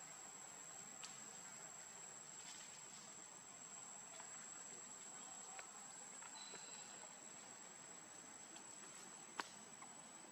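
Faint, steady, high-pitched insect drone over near-silent forest ambience, with a few soft ticks and one sharper click about nine seconds in.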